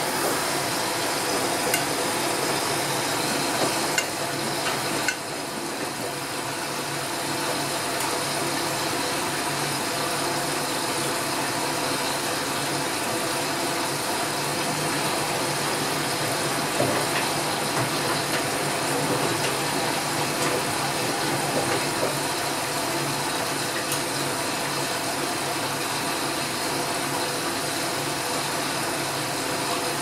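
Whirlpool Primo 1406 UM front-loading washing machine in its rinse cycle, the motor turning the drum while water and wet laundry slosh inside, steady throughout. There are a couple of sharp knocks about four and five seconds in.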